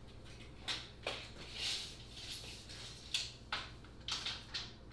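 Footsteps with a few sharp clicks and metallic rasps as a steel tape measure is pulled out and handled.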